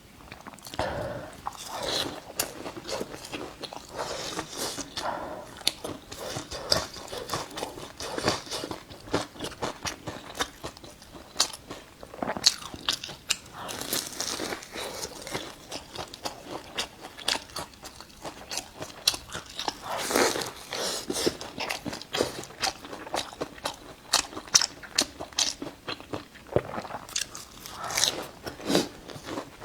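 Close-miked eating of a flaky-crust fresh-meat mooncake: crisp bites and crunching, with chewing in between, in an irregular run of small clicks and crackles.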